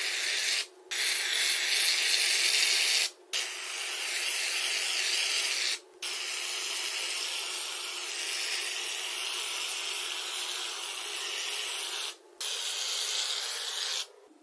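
Aerosol can of shaving foam spraying: a steady hiss as foam is squirted out, in five long stretches with short breaks where the nozzle is let go.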